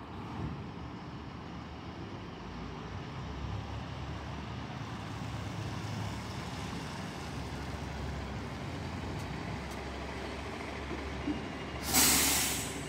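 Bus diesel engine running steadily, then near the end a loud, short hiss of compressed air from the air brakes, lasting under a second.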